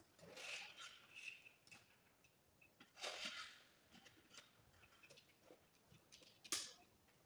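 Faint rustling and scraping of insulated wires being pulled by gloved hands through PVC wiring trunking, with a sharp click near the end.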